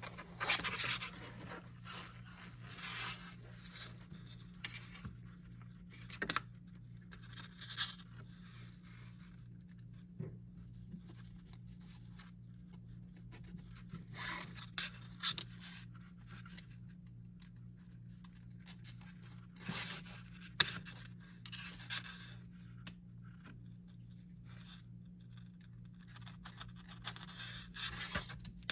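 A holster strap being pulled and snugged through the holster's small round loops: short, irregular bursts of scraping and rubbing with pauses between, over a steady low hum.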